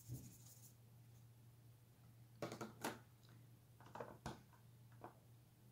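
Near silence over a low steady hum, broken by a few faint short clicks and scrapes about two and a half seconds in and again about four seconds in, like art materials being handled on the table.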